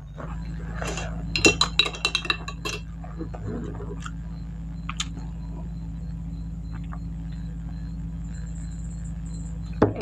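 Glass and ceramic tableware clinking: a quick cluster of sharp clinks about one and a half to three seconds in, then a few single taps. A steady low hum runs underneath.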